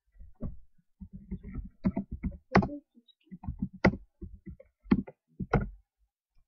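Typing on a computer keyboard: a run of quick, irregular key clicks, with a few louder strokes among them.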